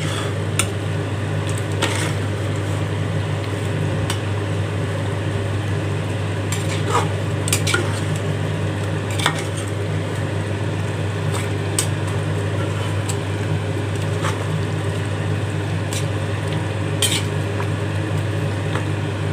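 A slotted metal ladle stirring chicken pieces and gravy in a large aluminium pot, clinking and scraping against the pot wall now and then, over a steady low hum.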